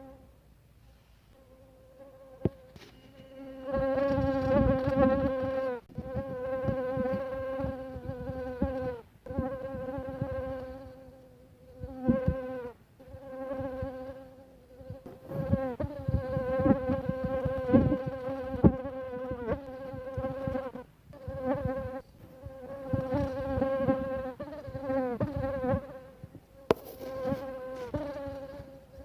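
Mosquito's high whining buzz coming and going in repeated close passes, each lasting one to three seconds. The pitch wavers and dips as each pass fades. A few sharp clicks are heard, one about two and a half seconds in and one near the end.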